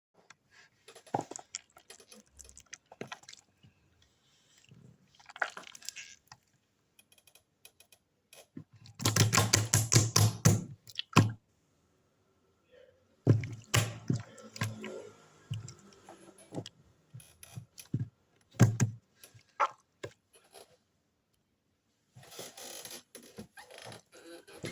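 Yellow slime being squeezed and poked by hand, making wet, sticky clicks and pops in loose clusters, with a dense run of crackling pops about nine to eleven seconds in.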